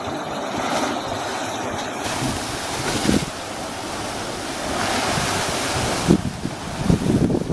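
Sea surf from a somewhat rough sea, a steady wash of waves that swells and eases every couple of seconds. Wind buffets the microphone, more so near the end.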